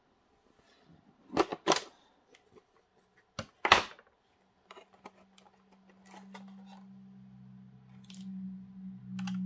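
Clear hard-plastic model-coach display box and insert being handled and opened: a few sharp plastic clicks and knocks, the loudest nearly four seconds in, then light ticks. A low steady hum comes in after about six seconds.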